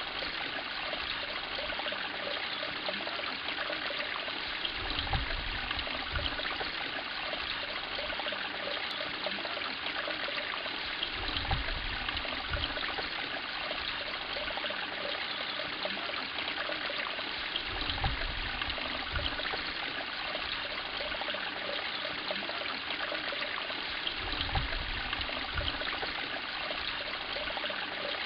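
Steady trickling and running of water at a koi pond. Pairs of short low rumbles come in about every six seconds.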